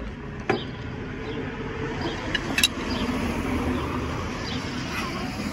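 City street traffic: a steady hum of passing cars, with two sharp clicks about half a second and two and a half seconds in.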